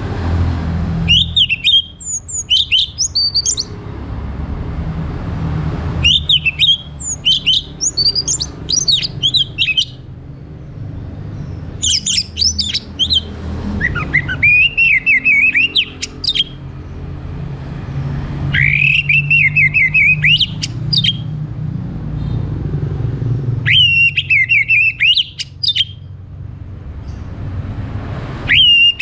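Orange-headed thrush singing in about five bouts of rapid, varied whistled notes and trills, each a few seconds long with pauses of a second or two between. A steady low rumble runs underneath.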